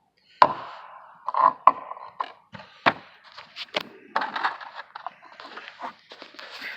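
Metal ratchets and sockets being handled: a string of sharp clicks and knocks as a 13 mm socket is fitted to a 1/4-inch drive ratchet and the tools are set side by side, with rustling handling noise between the clicks.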